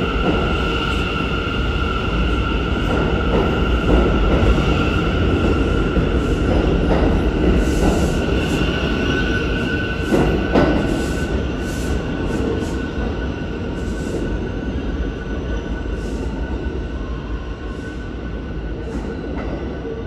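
New York City subway Z train pulling out of the station past the platform: a heavy rumble under a steady high whine, with a few sharp clacks of wheels over the rail joints, fading as the train runs off down the tunnel.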